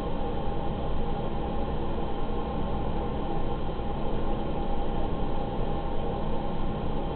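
Steady rushing noise with a faint, even hum underneath.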